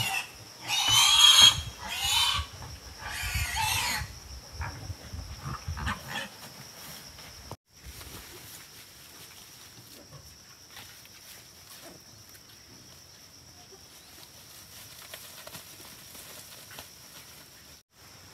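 Pigs squealing in four loud bursts over the first four seconds, then falling quiet. A faint steady high-pitched tone runs on underneath.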